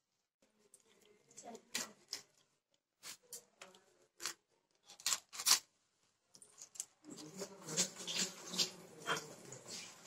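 Small fish being scaled and cut against an upright boti blade: a run of short, sharp scraping strokes, spaced out at first and growing denser and more continuous from about seven seconds in.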